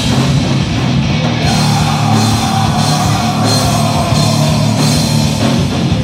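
A rock band playing live and loud: electric guitar, bass guitar and a full drum kit.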